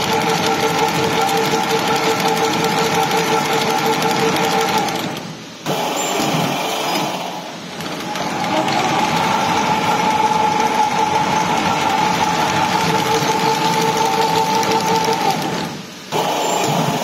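Razor barbed wire mesh welding machine running, with a rapid, steady mechanical clatter over a steady whine. The sound drops out briefly twice, about five and a half seconds in and again near the end.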